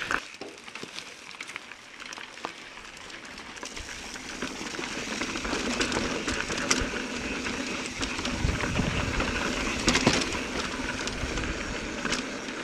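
Mountain bike rolling over a rocky trail: tyre noise on rock and sand with rattling and knocks from the bike, getting louder about four seconds in, with a harder knock near the end.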